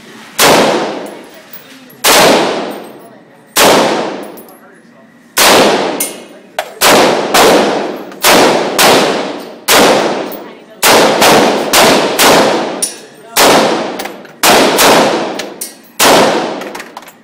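AR-15 rifle fired semi-automatically, about twenty shots, each echoing off an indoor range. The first few shots come well over a second apart, then the pace picks up to about two a second.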